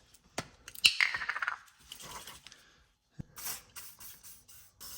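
Metal hand tools clinking and scraping as they are shifted about, with a handful of separate sharp clicks and knocks and a couple of short scraping rasps.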